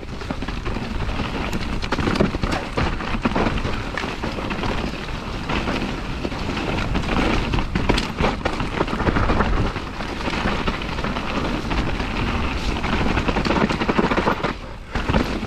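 Enduro mountain bike descending a dry, rooty dirt trail: a steady rush of wind and tyre noise on the handlebar-mounted camera's microphone, broken by frequent clicks and clatters as the bike rattles over roots and bumps.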